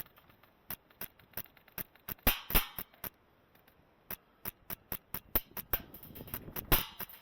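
Airsoft gunfire: a string of sharp, snapping shots at irregular intervals, a few louder ones about two and a half seconds in and again near the end.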